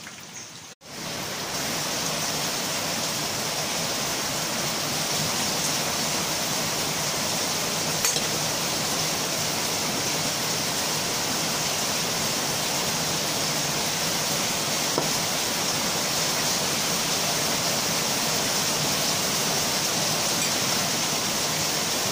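Heavy rain falling: a steady, even hiss of rainfall that starts abruptly just under a second in and holds level throughout.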